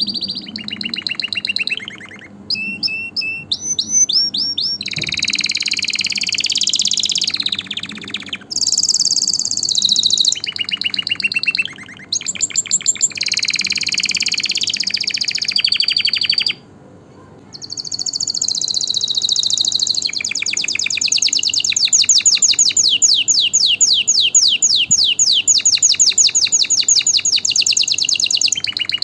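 Domestic canary singing: a long song of varied rapid trills and rolled phrases. After a brief pause about two-thirds of the way through, the song runs into one long, fast, even trill.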